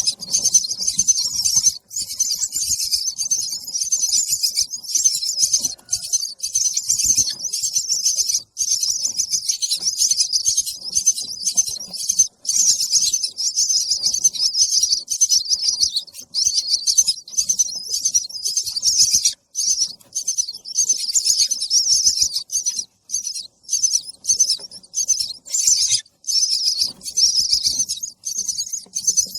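Baby bird begging for food with rapid, high-pitched chirping, almost unbroken apart from brief short gaps.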